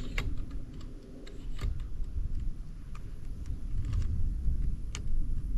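An e-bike riding a gravel road: a steady low rumble of tyres and wind, with irregular sharp clicks and ticks scattered throughout.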